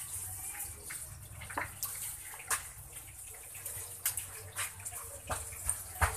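Dry groundbait powder shaken out of a plastic bag into a plastic basin, the bag rustling as the powder pours, with scattered light clicks and taps.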